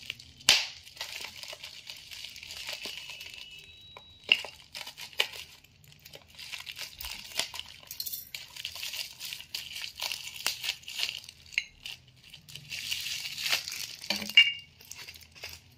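Bubble wrap crinkling and rustling as it is cut with scissors and pulled off stainless steel tumblers, with scattered small clicks. A few sharp clinks of steel stand out, the loudest near the end ringing briefly.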